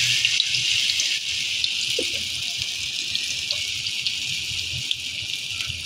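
Okoy (vegetable fritter) batter deep-frying in a wok of hot oil, freshly dropped in: a steady sizzle with small crackling pops.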